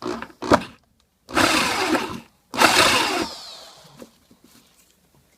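Electric drill run in two bursts of about a second each, boring into the resin-glued base of a shaving brush's handle, the second burst winding down as the trigger is released.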